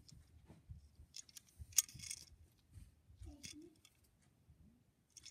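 Faint handling sounds of a small die-cast toy car turned in the fingers: scattered light clicks and rustles, with one sharper click about two seconds in.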